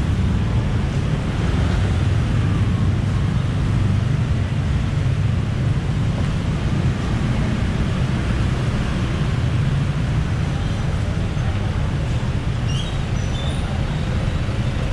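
Steady rumble of busy city road traffic, with no let-up.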